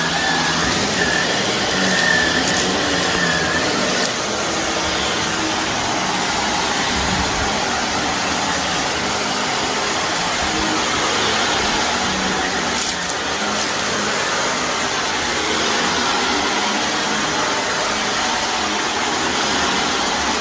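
Shark vacuum cleaner running steadily over a carpet laden with dry soil and debris, the suction crunching up grit, with a few sharp clicks.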